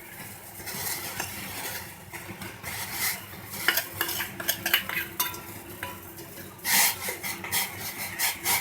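A spoon stirring in a cooking pot of boiling kashayam, scraping and clinking irregularly against the pot, with a louder scrape about seven seconds in.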